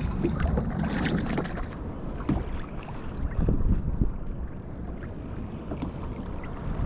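Wind buffeting the microphone on a fishing kayak, with water lapping at the hull and scattered light knocks and clicks.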